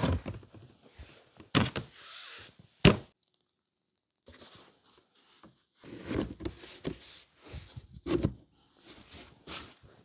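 Thuds and knocks as a fabric-covered sofa backrest is set onto its base and latched into metal brackets, with some rustling in between. The sharpest knock comes about three seconds in, and another cluster of knocks follows a few seconds later.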